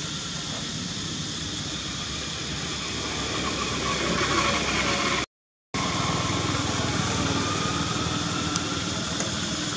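Steady background noise, an even hiss over a low hum with no clear events, cut by a half-second gap of total silence about five seconds in.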